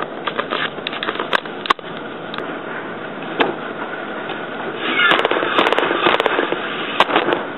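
Wooden floor loom being worked: knocks and clacks of the shafts, treadles and beater, a few single sharp knocks early on, then a quick clatter of many clacks from about five seconds in, with a brief squeak.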